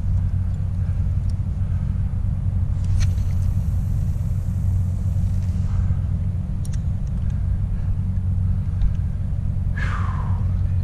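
Steady low rumble from the kayak moving through calm sea, with a hiss of water for a few seconds in the middle. Near the end a seabird gives one short call that falls in pitch.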